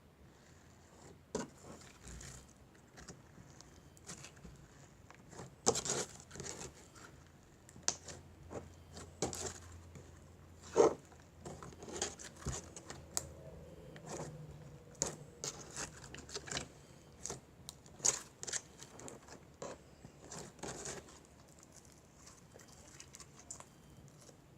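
Putty mixed with chunky glitter being kneaded and stretched by hand: irregular small crackles and clicks, the loudest about eleven seconds in.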